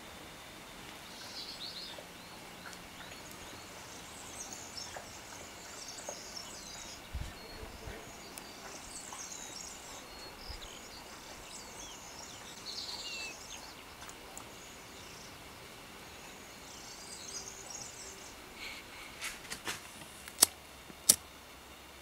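Faint birds chirping through the quiet. Near the end, two sharp clicks a little over half a second apart as the brass petrol lighter is opened and its flint wheel struck to light the wick.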